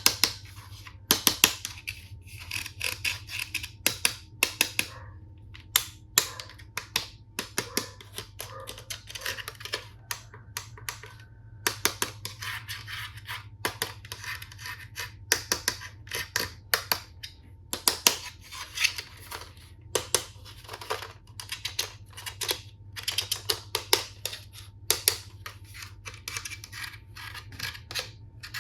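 Plastic toy tool-set pieces and packaging being handled: an irregular run of sharp plastic clicks and clacks, with rustling and scraping between them.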